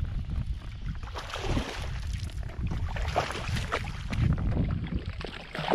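Hooked fish thrashing and splashing at the surface beside a kayak as it is reeled in, with wind rumbling on the microphone.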